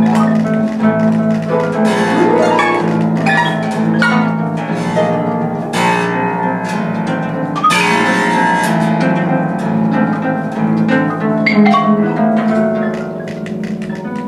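Two concert pedal harps plucked in free improvisation, with mallet percussion struck on wooden bars alongside and low notes ringing underneath. A quick upward sweep comes about two seconds in, and the playing grows quieter near the end.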